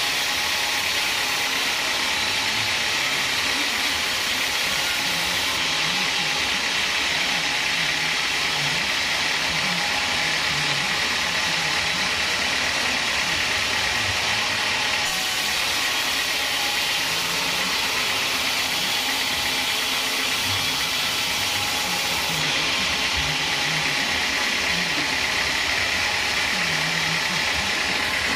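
Home-built band sawmill running steadily, its band blade cutting lengthwise through a teak log over the steady drone of the machine's engine.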